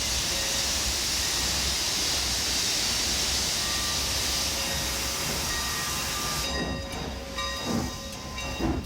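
Steady loud hiss of a steam locomotive letting off steam. About six and a half seconds in it gives way to low, evenly spaced thumps, about one a second.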